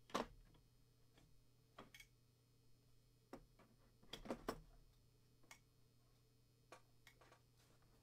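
Faint, scattered clicks and knocks of wooden lock-kit templates being handled and set against each other and the plastic carry case, the loudest about a quarter second in and a little cluster around four seconds, over a low steady hum.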